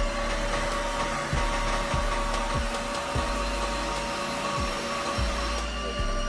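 Mamibot Flomo S cordless wet-and-dry vacuum running its self-cleaning cycle: a steady suction motor rush with a constant whine, as the rolling brush spins in the base and water is drawn through into the dirty-water tank.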